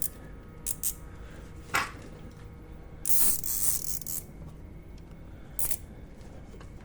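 Plastic cable tie being fastened around a rubber tie-rod boot: a few short clicks, then a rasping zip of about a second as the tie is pulled through its ratchet, and one more click later.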